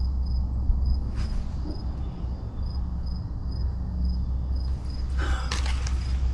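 An insect chirping in an even, quick rhythm, about two to three high chirps a second, over a low steady rumble.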